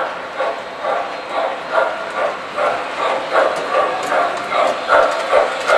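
Toy standard gauge steam locomotive running with its electronic sound system chuffing in an even rhythm, about two chuffs a second.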